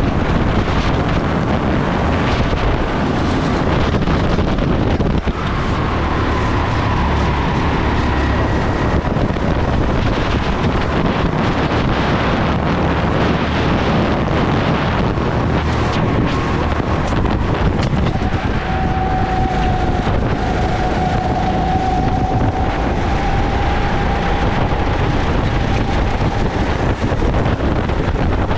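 Steady wind noise on an onboard go-kart camera's microphone at racing speed, over the go-kart's engine running underneath with a faint whine that shifts in pitch.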